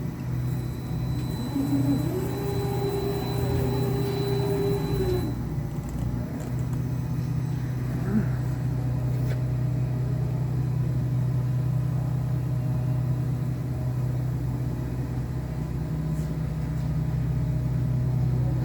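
Schneeberger Gemini DMR 5-axis CNC tool and cutter grinder running, with a steady low machine hum. A higher tone rises about two seconds in, holds, and cuts off at about five seconds, together with a faint high whine.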